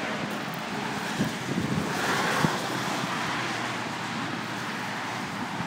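Wind buffeting the microphone over a steady rush of road traffic, with a louder swell of noise about two seconds in.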